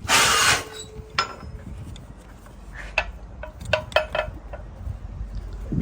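Metal ratchet-strap hardware on a truck's load strap clinking and rattling as the strap is handled, in scattered sharp clinks with a brief ring. It opens with a short, loud rush of noise lasting about half a second.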